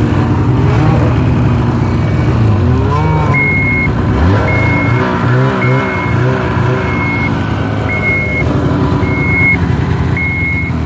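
Snowmobile engine revving up and down while backing up, with its reverse warning beeper sounding about once a second from about three seconds in.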